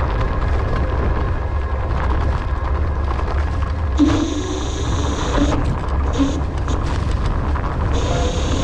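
Dualtron Thunder electric scooter riding over a dirt and grass track: heavy wind rumble on the low-mounted action camera's microphone with tyre and ride noise. A brighter hiss comes in about four seconds in and again near the end.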